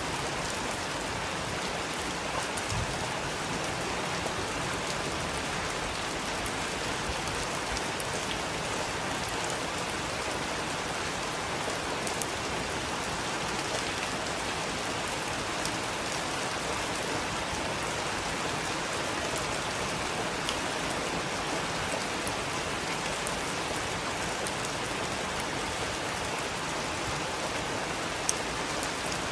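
Heavy rain falling steadily, a dense even hiss with scattered sharper drop ticks.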